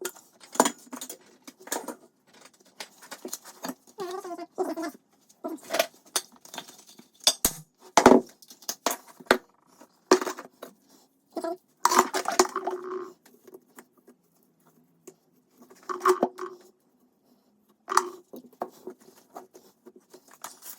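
Irregular clinks, scrapes and knocks of hard objects being handled, with louder knocks about eight and twelve seconds in and short quiet gaps between.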